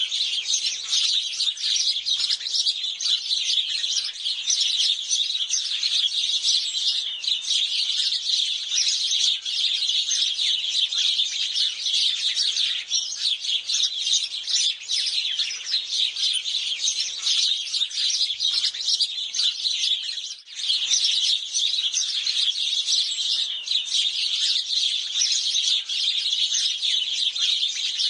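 A flock of house sparrows chirping nonstop, many short calls overlapping, with a brief lull about twenty seconds in.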